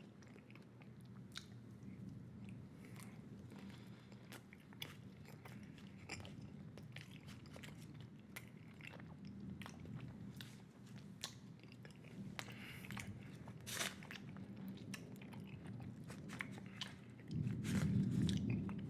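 Close-up chewing of a large wad of bubble gum: a dense run of wet mouth clicks and smacks over a steady low hum. A louder low rumble comes in near the end.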